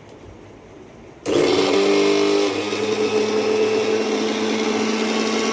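NutriPro mixer grinder's electric motor switched on about a second in, then running at full speed with a steady, loud whine; its tone shifts slightly about a second after starting.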